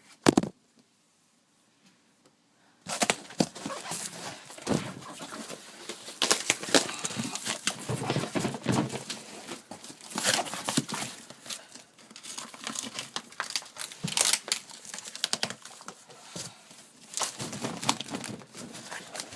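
A sharp click, then after about three seconds of near silence, packaging being crinkled and torn open: continuous paper-like rustling and tearing with frequent sharp handling clicks.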